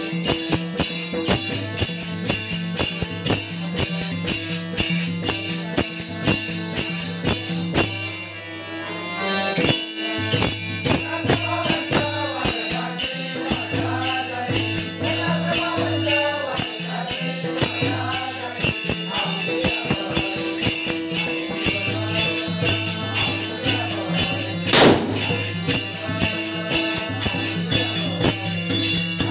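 Warkari bhajan music: rapid, even strokes of jingling metal percussion over steady held drone notes, with a voice singing in the middle stretch. The music drops away briefly about eight seconds in, and a single sharp knock comes near the end.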